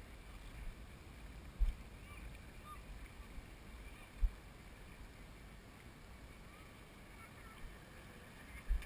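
Wind buffeting the microphone: a low rumble with three short thumps from gusts, spread through the stretch.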